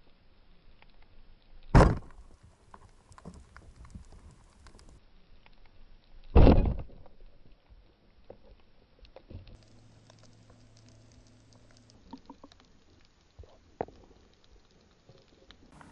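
Underwater speargun firing at a mullet: a sharp crack about two seconds in and a heavier thud about four and a half seconds later. Around them are faint underwater clicks and ticks, and later a low steady hum.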